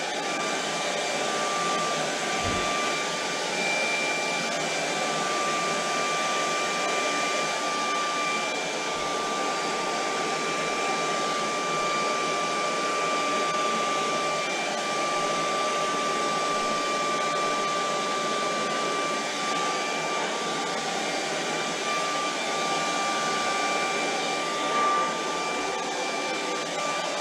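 Handheld hair dryer running steadily, blowing air across wet acrylic paint on a canvas: an even rush of air with a steady motor whine.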